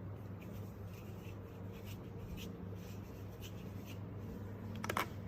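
Quiet rubbing and light ticks of something being handled, over a low steady hum, with a few sharper clicks near the end.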